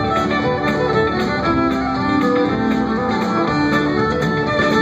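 Live band music with a fiddle carrying the melody over electric guitars and upright bass, amplified through the PA.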